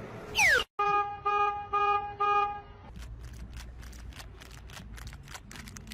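A quick falling whistle, then four short toots in a row at one steady pitch, like a horn. After them come scattered light clicks over a low rumble.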